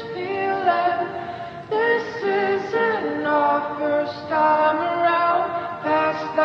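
Background music with sung vocals: a song with a melody held in notes a fraction of a second long.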